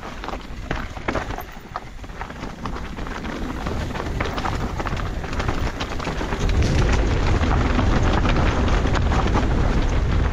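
Mountain bike being ridden on a dirt singletrack: tyres running over dirt and stones, with many small knocks and rattles from the bike. Wind buffets the microphone, much heavier from about six and a half seconds in.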